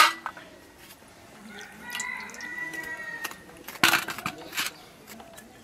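Cauliflower florets dropped into a small stainless-steel bowl, with sharp clinks at the start and again about four seconds in. Between them a rooster crows once in the background, a single long held call.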